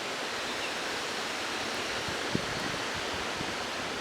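Steady rushing noise of gusty thunderstorm wind, with a faint knock about two seconds in.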